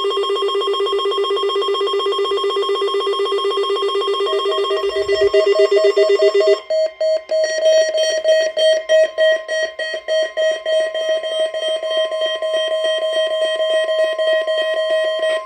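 NOAA Weather Radio warning alarm tone: a loud, rapidly pulsing electronic tone that switches about six and a half seconds in to a choppier, warbling pattern over steady higher tones, and cuts off at the end.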